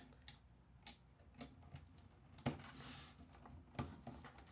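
Faint, scattered clicks and ticks of PC cables and small plastic connectors being handled, with a short soft rustle about three seconds in.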